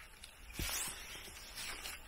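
Rustling and scraping from close handling: a swell of noise starts about half a second in and lasts over a second.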